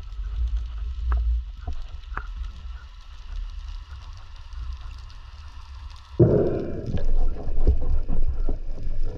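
Underwater sound picked up through a GoPro housing: a low rumble of moving water with scattered small clicks. About six seconds in, a sudden, louder rushing noise sets in.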